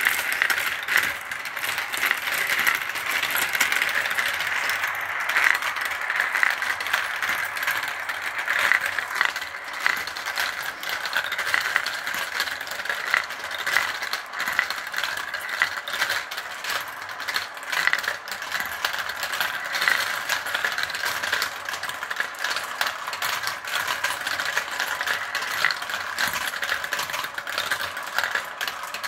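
Many glass marbles rolling and clattering down a clear plastic marble run, spinning round its funnels and knocking through its tubes and tracks in a steady, dense rattle of small clicks.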